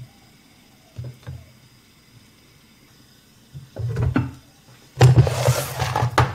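Kitchen cookware handling: soft knocks as stuffed chillies are set into a pan of coconut milk, then a lid set down on the pan about four seconds in. A louder stretch of clattering handling noise follows near the end.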